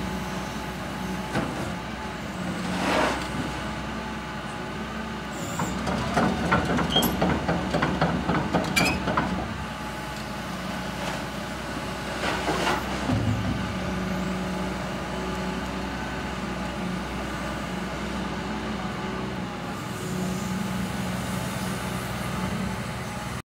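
Caterpillar 326F L excavator's diesel engine running steadily at idle, with a few seconds of rapid clattering in the middle and two brief hissing rushes. The sound cuts off abruptly near the end.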